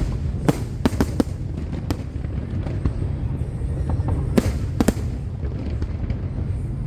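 Aerial fireworks going off: a series of sharp bangs and cracks, a cluster in the first second or so and another about two-thirds of the way through, over a constant low rumble.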